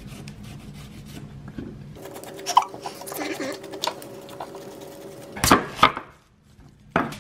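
A vegetable peeler scraping the skin off a ginger root on a wooden cutting board, with light scrapes and ticks. Near the end a large knife chops through an onion onto the board: two sharp chops close together, then a third a moment later.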